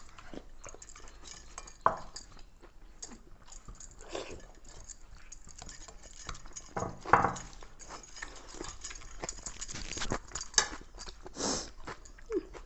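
Eating sounds: scattered light clicks and clinks of plates, with a short voice-like sound about seven seconds in.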